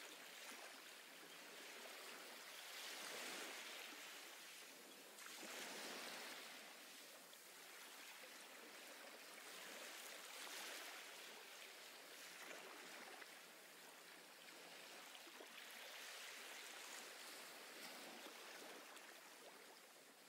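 Faint ocean surf: waves washing in and drawing back, the hiss swelling and fading every few seconds.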